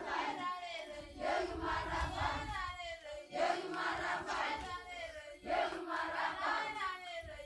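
A group of voices chanting in four phrases of about two seconds each, with short breaks between.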